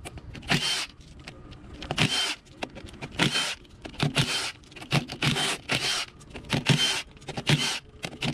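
A hammer striking metal on the forklift's brake assembly: about a dozen ringing blows, roughly one a second, some in quick pairs.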